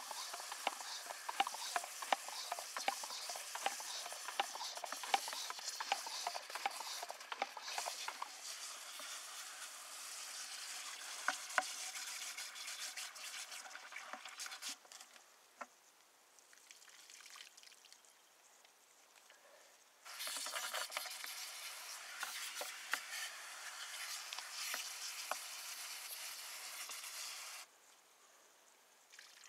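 A brush churning froth in a plastic bucket: a scratchy, fizzing hiss with many light ticks in the first half. It drops away about halfway through, starts again about two-thirds of the way in, and cuts off suddenly near the end.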